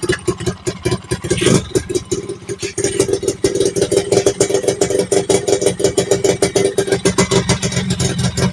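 Yamaha F1ZR two-stroke single-cylinder engine running just after a start, after sitting unused for a long time. It runs unevenly for the first few seconds, then settles into a steady idle.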